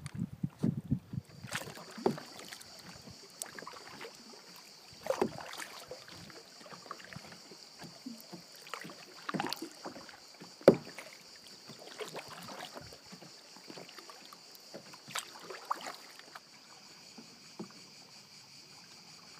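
Canoe paddle strokes dipping and splashing in calm river water at an irregular pace, one sharper splash about ten seconds in. Under them, a steady high buzz of cicadas from the gorge's wooded banks.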